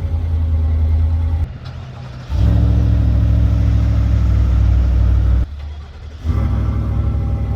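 2022 Chevrolet full-size SUV's V8 exhaust running at a steady engine speed. The sound drops away abruptly twice for under a second, about a second and a half in and again about five and a half seconds in, then returns at the same pitch.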